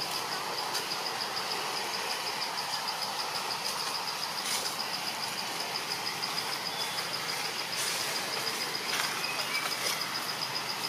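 Insects trilling steadily, a high, rapidly pulsing chirp, over a steady outdoor hiss, with a few faint clicks.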